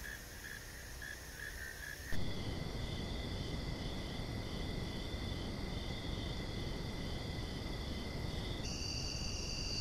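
Night insects chirping in steady, pulsing high trills over a low hiss. The chorus changes abruptly about two seconds in, when the hiss grows louder, and shifts higher again near the end.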